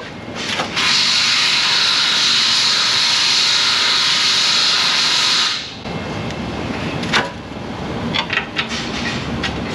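Compressed air hissing steadily from a shop air tool, with a brief break just after the start, then cutting off about five and a half seconds in. Quieter shop noise with a few sharp clicks and clinks follows.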